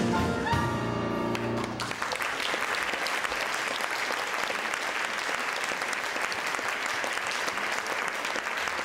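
Piano and small ensemble playing the final notes of a number, ending about two seconds in, followed by steady audience applause.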